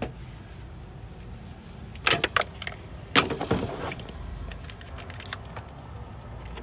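Small metal tools or parts clinking as they are handled: a quick cluster of sharp clicks about two seconds in, then a louder clack about three seconds in followed by a brief rattle, and a few light ticks after.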